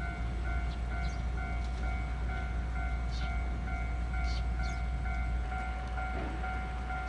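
Japanese level-crossing warning bell ringing in rapid, evenly spaced dings, over the low rumble of a train going past.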